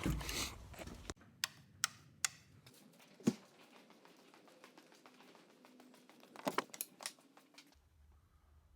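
A few faint, scattered clicks and light knocks of small objects being handled, the loudest about three seconds in and a short cluster near the end.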